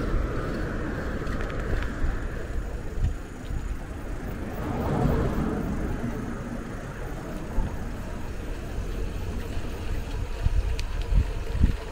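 Steady low rumble of wind and road noise from a moving mamachari bicycle, with a car passing about five seconds in. A few light knocks near the end.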